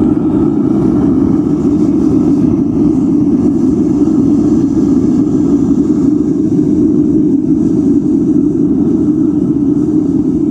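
Melting furnace's burner firing steadily with a constant loud rushing noise, re-melting the slag in a graphite crucible at white heat.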